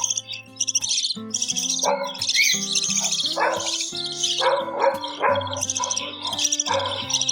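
Budgies calling in repeated raspy, chattering bursts, with backing music of held notes that change pitch every second or so.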